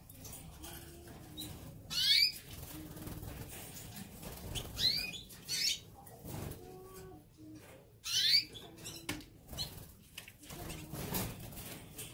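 Caged canaries fluttering and flapping their wings, with four short sliding chirps scattered through, the loudest about two seconds in and again about eight seconds in.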